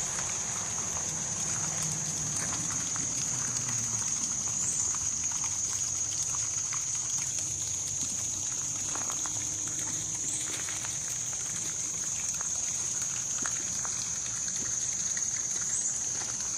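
An outdoor insect chorus trilling in one steady, high-pitched drone, with faint scattered ticks underneath.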